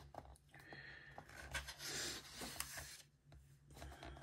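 Paper pages of a large colouring book being turned by hand: a dry rustle and swish of paper, loudest about two seconds in, with light hand rubbing on the page.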